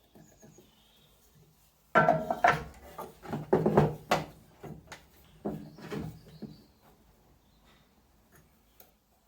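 Wooden knocks and clatter from 4x2 timber offcuts being handled and set down: a sudden burst about two seconds in, a few more knocks a little later, then quiet.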